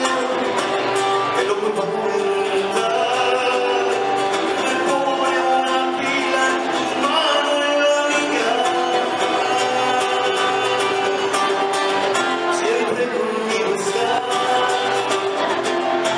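Live performance of a Latin American song: singing over instrumental accompaniment that includes plucked strings, at a steady loudness.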